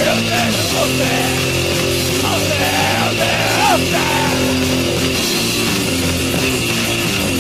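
Studio recording of a hardcore punk song: distorted electric guitars, bass and drums, with shouted vocals over roughly the first half that then drop out, leaving the band playing on.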